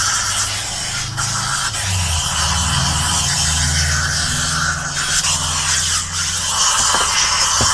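Steam cleaner hissing steadily as it blasts steam into the cup holders of a truck cab, with a low hum underneath.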